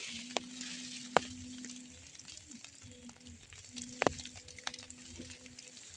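Drizzle pattering, with scattered sharp drips and a soft hiss that fades over the first two seconds. A low steady hum comes and goes underneath.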